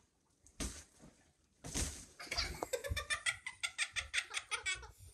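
A single thump about half a second in, then laughter from about two seconds in: a quick run of high-pitched pulses, about five a second.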